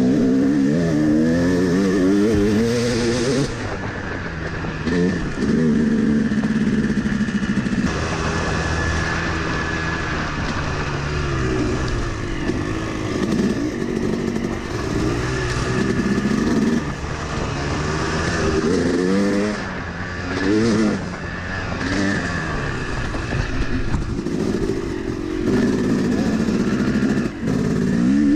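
Yamaha 250cc two-stroke dirt bike engine, heard close from the bike, revving up and down again and again as the rider works the throttle and gears along a dirt trail.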